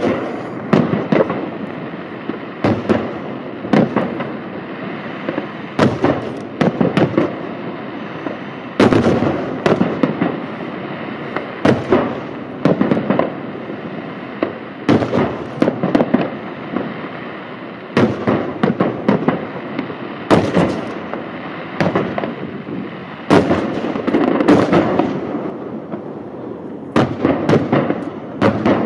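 Aerial firework shells bursting in quick succession: sharp bangs every second or so over a continuous din of smaller pops and rumble.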